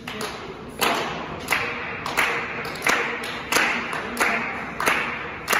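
Beat of a music track: sharp clap-like percussion hits evenly spaced about three every two seconds, each with a short ringing tail.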